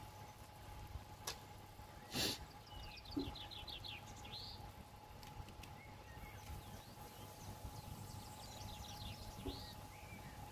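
Faint bird chirps and quick trills over a steady hum, with one sharp knock about two seconds in.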